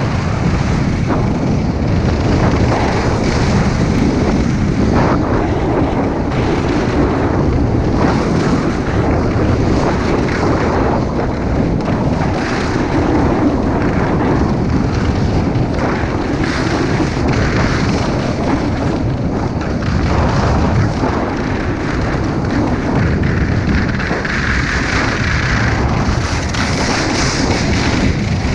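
Strong wind rushing over a head-mounted action camera's microphone while moving at speed behind a kite, a loud, steady buffeting rumble.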